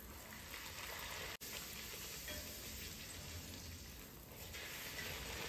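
Dal puri deep-frying in hot oil in a small kadai, a faint steady sizzle as the puri puffs up.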